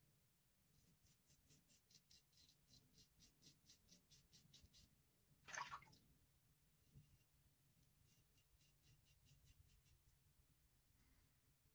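Faint scraping of a Rockwell 6C safety razor with a Personna Super Blue blade cutting through about a week's stubble, in two runs of quick short strokes at about four or five a second. One longer, louder stroke comes about halfway through.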